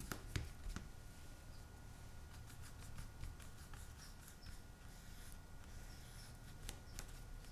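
Faint scratchy brush strokes of acrylic paint on smooth hot press watercolour paper, with scattered light clicks and taps.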